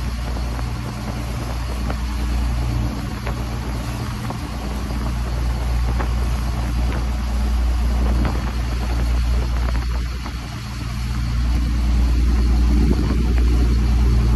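A boat's engine running steadily underway, a low hum under the rush of the churning wake, swelling a little near the end.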